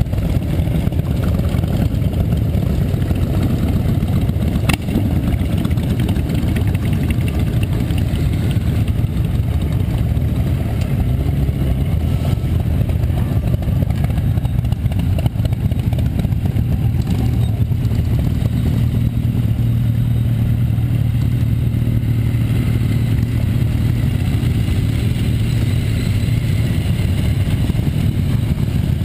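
A column of motorcycles, cruisers and touring bikes, riding past one after another, their engines running in a steady low rumble with no break.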